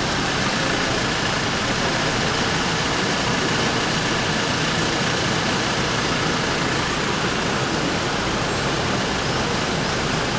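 Steady, even rushing noise of road traffic as a line of cars moves slowly past.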